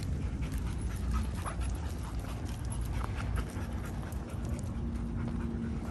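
A dog panting close by, with scattered light crackles of wood chips underfoot.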